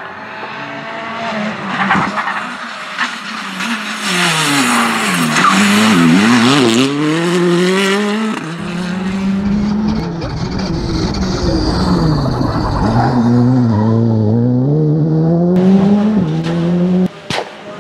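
Rally cars driven hard on a special stage: engines revving up and falling back repeatedly through gear changes and braking, with tyre noise.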